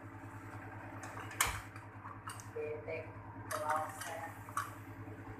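Panasonic split air conditioner's compressor running with a steady low hum while it is being charged with refrigerant, with one sharp click about one and a half seconds in.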